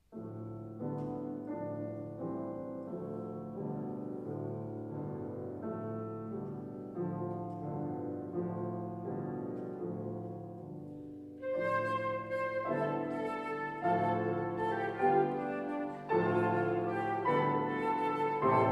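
Grand piano begins a steady, repeated chordal accompaniment alone; about eleven seconds in a concert flute enters over it with a louder melody.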